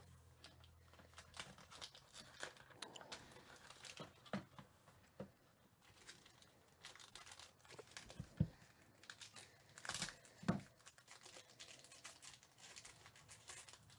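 Foil wrapper of a sealed trading-card pack crinkling and being torn open by hand, with scattered crackles throughout. Two louder knocks come past the middle.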